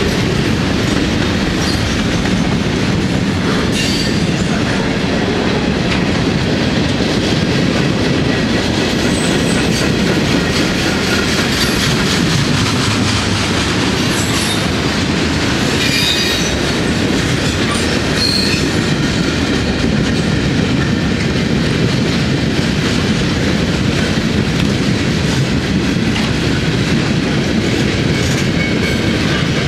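Freight train cars (covered hoppers, boxcars and coil cars) rolling past close by: a steady rumble of steel wheels on rail, with a few brief high wheel squeals.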